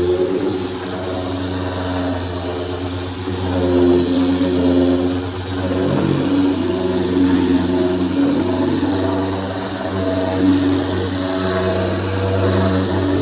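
Electric power sander running steadily against wood, its motor hum wavering in pitch as the load changes.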